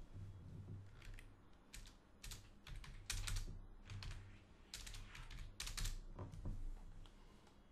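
Computer keyboard typing: short irregular runs of keystrokes that stop a little after six seconds in, over a faint low steady hum.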